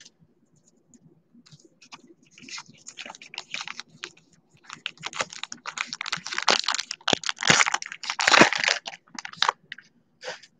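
Baseball trading cards being handled at close range: a run of quick, crisp flicks, slides and crinkles as the cards are worked through one by one, busiest from about five to nine seconds in.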